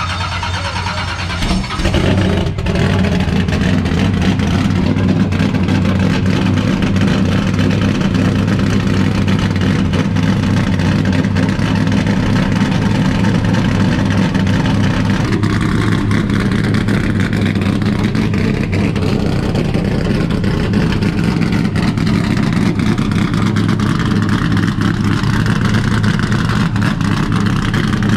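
Carbureted small-block Chevrolet V8 of a 1988 NASCAR Chevrolet Monte Carlo Aerocoupe stock car, running steadily through its race exhaust. The engine note shifts slightly about halfway through.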